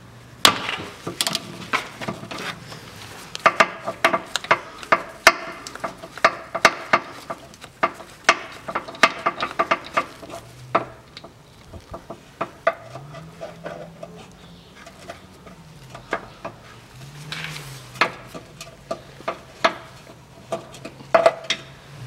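Metal hand tools clinking and clicking: a ratchet with a hex bit and socket extension being handled and fitted, in many sharp, irregular knocks. A faint low hum rises and falls now and then.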